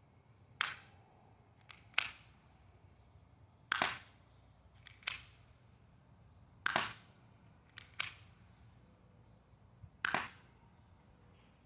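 Colt BB pistol fired repeatedly at a box target: sharp pops about every three seconds, with fainter clicks and cracks between them.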